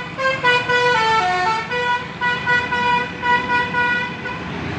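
Tour bus's Basuri telolet horn, a musical multi-note air horn, playing a tune of repeated short notes with a quick falling run about a second in. It stops shortly before the end, leaving a steady noise.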